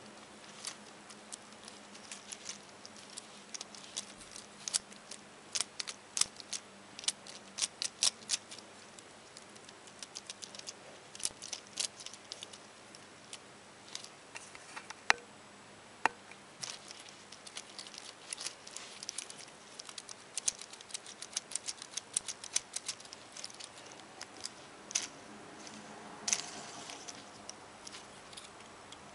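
Plastic Lego Technic parts clicking and rattling as a truck chassis is handled and its parts moved by hand: irregular small clicks throughout, with a couple of sharper clicks around the middle.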